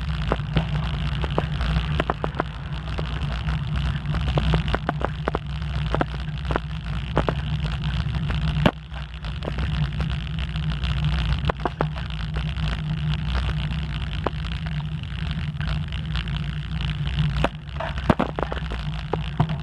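Wind buffeting the microphone of a phone on a moving bicycle, with tyre noise on asphalt and frequent small clicks and rattles as the bike rolls over the rough road.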